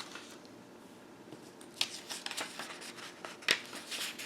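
Printed paper sheets being handled and shuffled: a run of short rustles and taps starting a little under two seconds in, the sharpest about three and a half seconds in.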